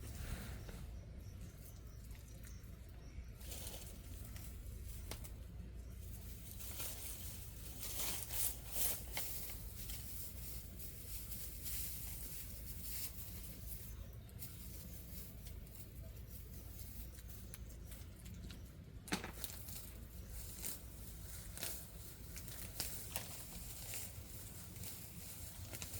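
Intermittent rustling and crackling with scattered sharp clicks, louder about a third of the way in, over a steady low rumble.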